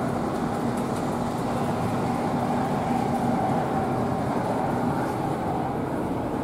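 O gauge three-rail toy trains running on a layout: a steady rumble and hum from the locomotive motors and the wheels on the track.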